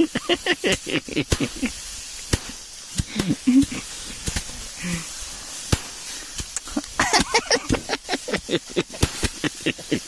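Sheaves of harvested rice being beaten by hand to thresh out the grain: dry straw rustling with many quick, sharp knocks and grain scattering. Brief voices come in about three seconds in and again about seven seconds in.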